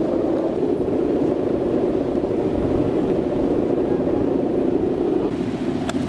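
Humming bow (guangan) of a large Balinese kite droning steadily in strong wind, a low buzzing hum; the tone shifts slightly near the end.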